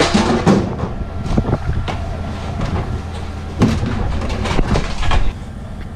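Plastic crab crates knocking and clattering as they are handled in a boat's hold, several separate clatters over a steady low machinery hum.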